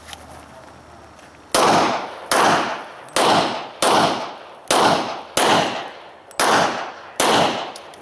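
Eight pistol shots at a steady pace, a little under a second apart, the first about a second and a half in, each followed by a short echo.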